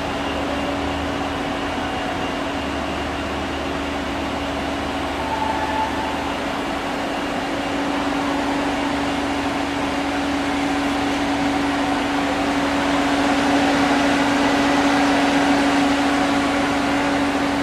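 Steady machinery hum with a constant low drone and a fan-like rush, getting a little louder in the last few seconds.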